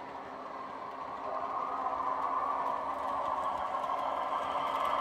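Piko model of a class 612 Regio-Swinger diesel railcar running on the layout, its ESU sound decoder playing the diesel engine sound from the model's small speaker. It grows steadily louder from about a second in as the model approaches, mixed with the running noise of the model on the track.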